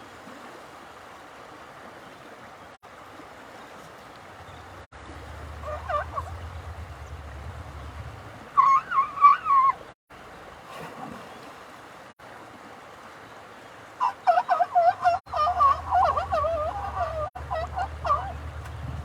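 Warbling animal calls in several bouts: a short one about six seconds in, a louder one near the middle, and a longer run of rapid calls in the last third, over a low steady hum.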